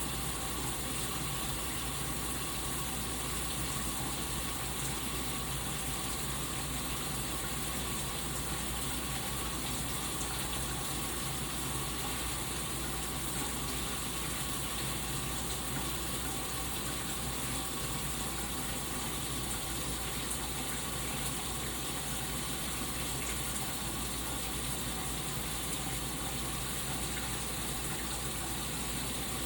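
Shower head spraying water in a steady, unbroken hiss.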